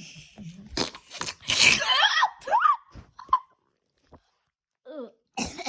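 A person making weird mouth noises: a hiss, sharp clicks and smacks, then squeaky sliding squeals about two seconds in, with a few short noises near the end.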